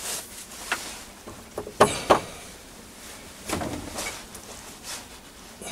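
A few short clicks and knocks as a steel shaft is handled and seated between a lathe's collet chuck and a tailstock live centre. The two sharpest knocks come close together about two seconds in.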